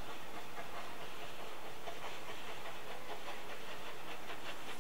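Steam train running on the rails: a steady rushing noise with many faint rapid clicks.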